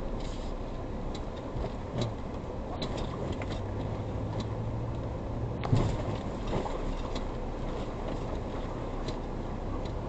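Engine hum and road noise inside a Ford Ranger Raptor's cabin as it drives on a rutted dirt road. A few knocks and rattles come as it goes over bumps, the loudest about halfway through.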